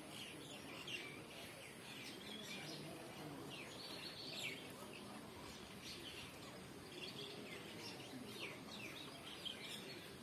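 Faint, repeated bird chirps over steady background noise.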